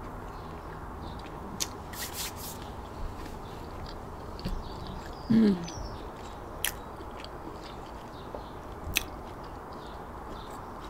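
Close-up chewing of a crusty baguette sandwich, with a few sharp mouth clicks scattered through. A short, low vocal sound about halfway through is the loudest moment.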